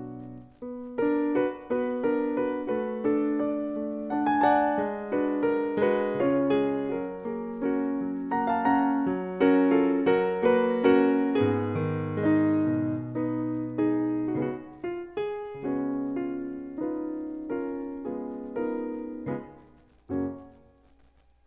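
Solo piano playing an accompaniment score for a silent film: a moving melody over chords, each note struck and dying away. Near the end the playing thins and stops, with one short chord before a pause.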